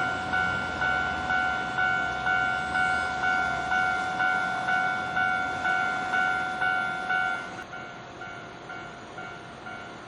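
Japanese level crossing warning bell ringing its repeated kan-kan at about two strokes a second, with the low rumble of a train running past that fades out about four seconds in. Near the end the bell drops to a quieter level.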